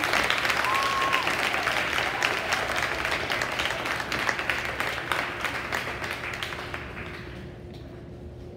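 Audience clapping, fading away over about seven seconds.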